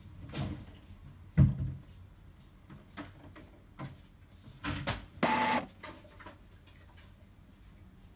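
Epson L3150 ink tank printer's mechanism working through a power head-cleaning cycle: a series of mechanical clicks and clunks, the loudest about a second and a half in, then a short motor whir a little after five seconds.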